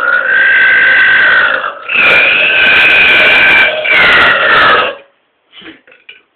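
A man's loud, long burp lasting about five seconds, breaking off briefly near two seconds in and then carrying on at a fairly steady pitch before it stops.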